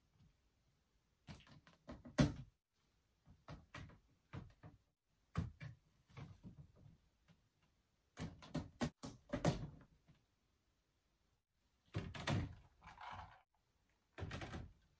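Clear plastic drop-front shoebox doors being swung open and shut and shoes set down inside: irregular clusters of plastic clacks and knocks, the sharpest about two seconds in and again around nine and a half seconds in.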